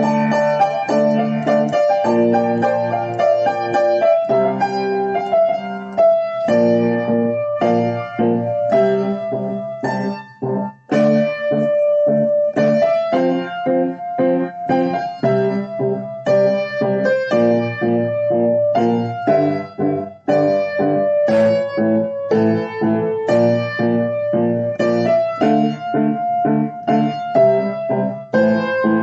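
Piano music: a steady, rhythmic accompaniment of repeated chords under a melody line.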